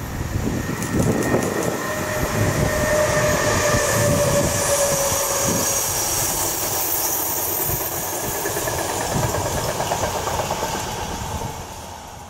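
České dráhy Siemens Vectron class 193 electric locomotive and its passenger coaches passing close by, the wheels clattering over the rails. A steady high tone rides over the rolling noise for a few seconds as the train goes past, and the sound drops away near the end.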